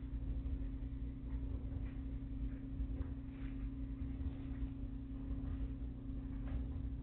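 Steady low hum with a constant droning tone, and a few faint light ticks scattered through it.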